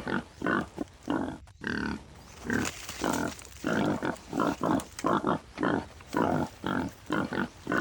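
A rapid run of short animal calls, about three a second, with a brief break about a second and a half in.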